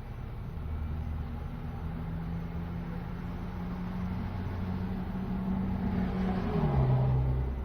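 A motor vehicle's engine running with a steady low hum that grows louder, then drops in pitch about six and a half seconds in as it reaches its loudest.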